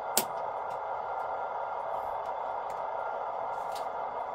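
Sound-fitted Class 156 model's DCC sound decoder playing the diesel unit's idle through the model's small speaker, a steady hum, with a sharp click just after the start and a few faint ticks.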